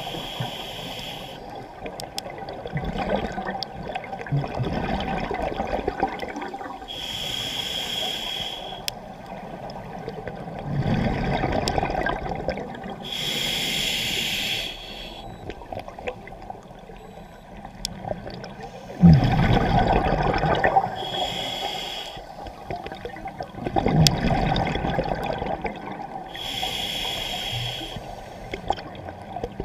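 Scuba diver breathing through a demand regulator underwater: a hissing inhale about every six to seven seconds, each followed by a rush of exhaled bubbles.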